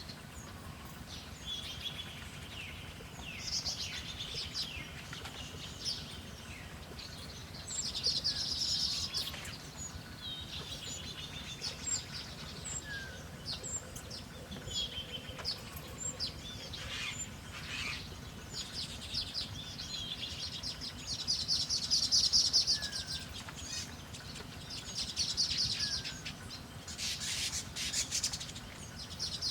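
Wild birds chirping and calling: many short high chirps, with bursts of rapid trilled song every few seconds, over a faint steady low background rumble.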